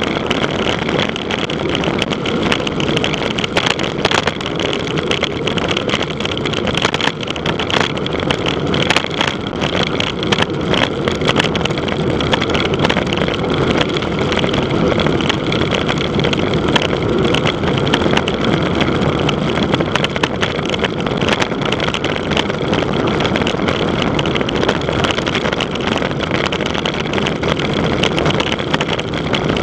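Steady, loud rush of wind buffeting the microphone of a bicycle-mounted camera, with tyre and road noise underneath, typical of a fast road-bike descent.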